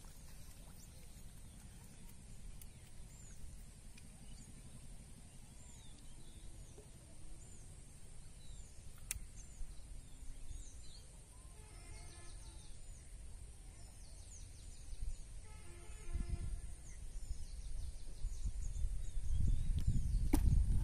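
Open-air rural ambience: a low rumble of wind on the microphone with small birds chirping over and over, and a faint call with several pitches twice near the middle. The rumble grows louder over the last few seconds.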